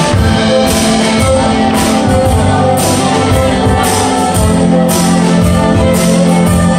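Live contra dance band of fiddle, keyboard and percussion playing a dance tune with a steady beat.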